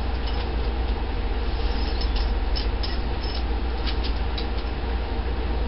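Steady low hum and hiss, with a few faint clicks.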